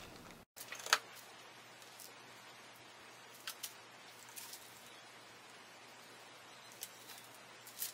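Quiet bench work on a circuit board during hand soldering: a few faint, scattered clicks and taps from wires and tools being handled, the sharpest about a second in, over low room hiss.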